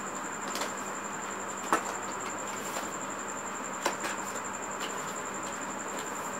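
Fingers picking at and peeling packing tape off a cardboard box: faint scratching with two sharp clicks about two seconds apart, over a steady hiss and a high whine.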